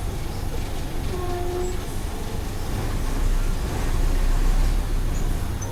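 Mercedes-Benz OF 1418 bus's diesel engine running with a deep steady rumble that grows louder about three seconds in, as under acceleration. A short, steady tone sounds briefly about a second in.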